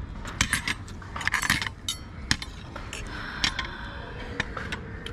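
Metal forks and a spoon clinking and scraping against a ceramic plate during a meal: a string of sharp, irregular clinks.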